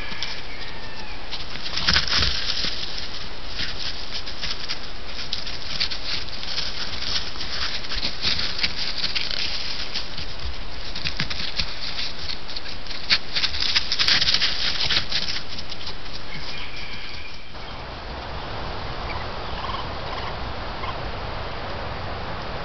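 Dense crackling and crunching close to the microphone from white-tailed deer feeding and moving over crusty snow and frozen ground, with a couple of faint short calls. About three-quarters of the way in it gives way to a steady, quieter hiss.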